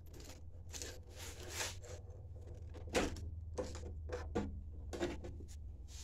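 Handling noise of a kitchen faucet being seated on a stainless sink: a short rustle of the supply hoses about a second in, then four light knocks and clicks as the faucet body and hoses are pushed through the mounting hole, over a steady low hum.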